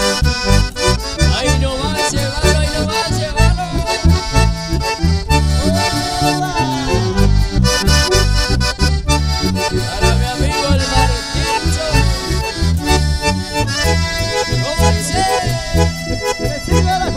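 A live band playing accordion-led music: button accordion and bandoneon over acoustic guitar and bass guitar, with a regular pulsing bass beat.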